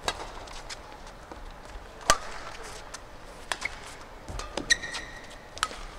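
Badminton rally: rackets striking the shuttlecock in several sharp cracks roughly a second or so apart, the loudest about two seconds in, with a brief high squeak of a court shoe on the floor just before five seconds.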